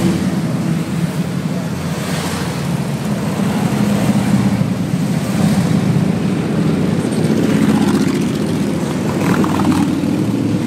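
A stream of large touring motorcycles riding past one after another, their engines running loud and steady, the sound swelling a little as each bike goes by.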